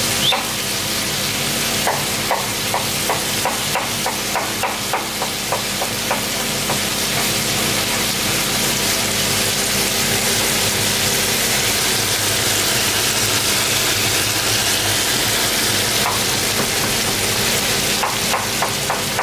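Chicken, bell pepper and red onion sizzling in oil in a frying pan, a steady hiss. A chef's knife chops on a wooden cutting board at about three strokes a second for several seconds starting about two seconds in, and again near the end.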